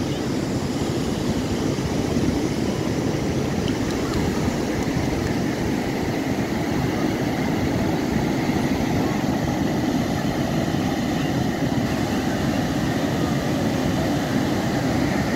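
Sea surf breaking on a sandy beach: a loud, steady rush of waves with no letup.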